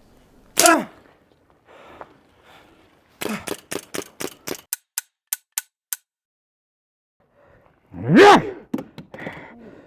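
A man crying out in pain, a short falling cry early and a loud rising-then-falling groan near the end. In between, a quick run of about a dozen sharp clicks that space out and fade.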